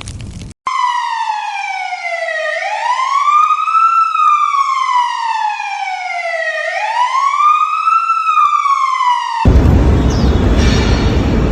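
Emergency vehicle siren wailing, its pitch sliding slowly down and then back up in cycles of about four seconds. Near the end a loud rushing rumble cuts in over it.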